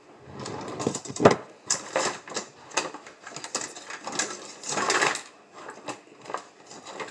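Jar of garlic being gripped and its lid wrenched at: a run of irregular clicks, knocks and rustles, with one sharp knock about a second in. The lid is stuck and will not open.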